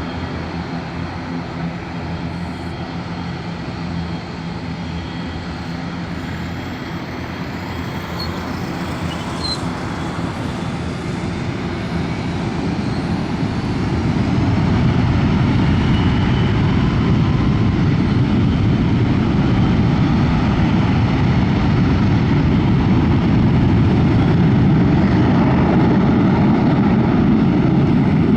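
Boeing 727-200 freighter's three Pratt & Whitney JT8D turbofan engines running. The noise swells about halfway through and stays loud.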